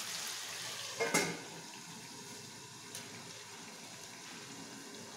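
Chicken breasts frying in olive oil and butter, a steady sizzle. About a second in, a stainless steel lid clanks onto the pan, and the sizzle carries on quieter, muffled under the lid.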